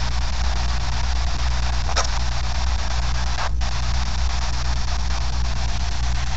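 Steady hiss over a low constant hum, with one short click about two seconds in and a brief dip just after three and a half seconds.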